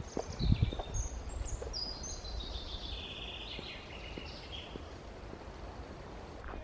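A songbird singing one song: a run of short notes stepping down in pitch over about four seconds. A couple of low thumps sound in the first second.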